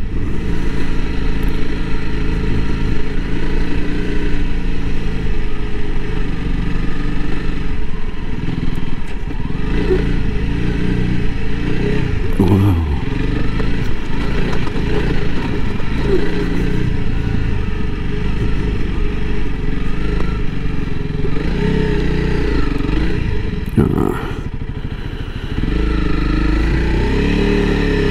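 Honda CRF300L Rally's single-cylinder engine riding through soft sand, the revs rising and falling as the throttle is worked. About three seconds before the end it eases off briefly, then picks up again.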